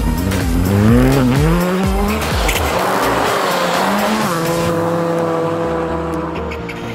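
Skoda Fabia R5 rally car's turbocharged 1.6-litre four-cylinder engine revving hard, its pitch rising and falling with throttle and gear changes as the car slides past on snow, then holding a steadier note for the last few seconds.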